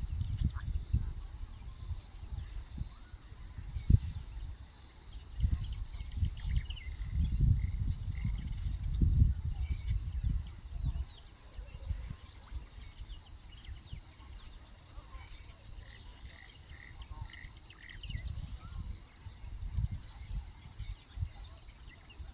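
Steady, fast-pulsing high trill of an insect chorus, like crickets, throughout. Irregular low rumbles on the microphone come and go and are loudest in the first half.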